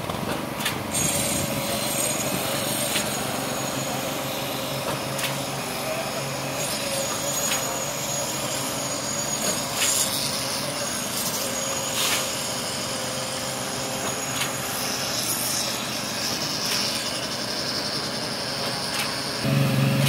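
Truck-mounted concrete pump and mixer truck engines running steadily, with a sharp knock about every two seconds and rakes scraping through wet concrete.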